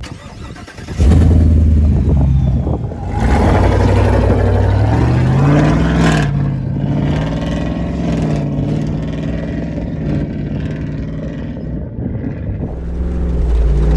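Jeep Wrangler's swapped-in 6.2-litre GM Gen V LT V8 running loud as the vehicle drives off on gravel. The engine note starts about a second in, climbs in pitch for a couple of seconds around the middle as it accelerates, then drops and holds steady.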